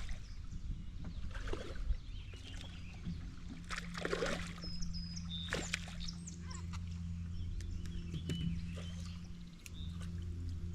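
Sounds of a small fishing boat on a river: a steady low hum, with scattered knocks and splashes while a smallmouth bass is being reeled in, and a few short, faint bird chirps.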